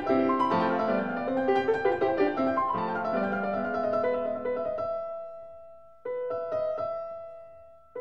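Background piano music: a flowing run of notes that dies away about five seconds in, then a single chord struck about a second later and left to fade.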